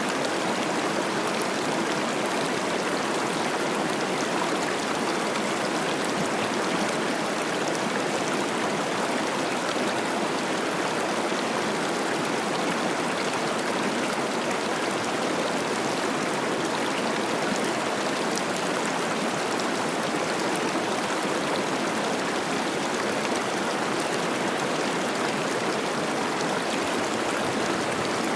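Cache la Poudre River running high with spring snowmelt: a steady, unbroken rush of fast water babbling over rocks.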